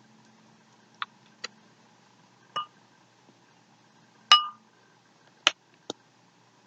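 Hard objects clicking and clinking as slime-making supplies are handled, about six sharp knocks spread over the few seconds; the loudest, a little past the middle, rings briefly.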